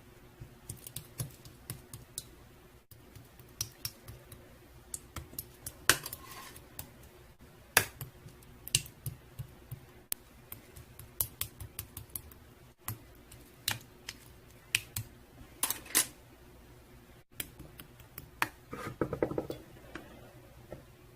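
Irregular sharp clicks and taps, a few a second, over a low steady hum, with a short denser rustling stretch near the end.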